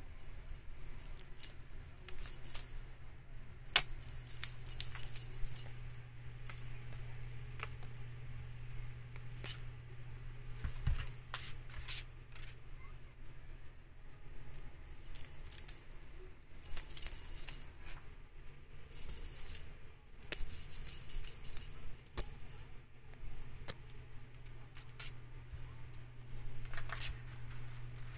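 A small jingle bell on a cat wand toy jingles in bouts as a kitten bats and chases it, with light taps and clicks from the toy. There are two long stretches of jingling, one a few seconds in and one past the middle, and a shorter one near the end.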